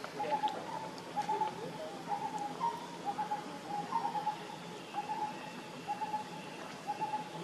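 A bird calling in the forest: a short, clear note repeated steadily, about one to two times a second, with a few faint clicks underneath.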